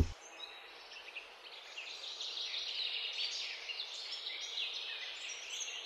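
Many small birds chirping and twittering over a faint steady hiss of outdoor background.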